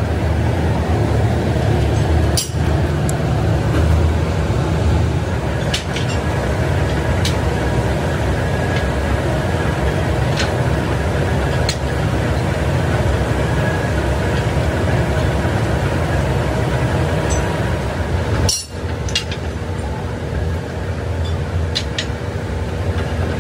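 Steady low drone of running workshop machinery, with scattered sharp metallic clinks as steel truck leaf springs are handled and knock together.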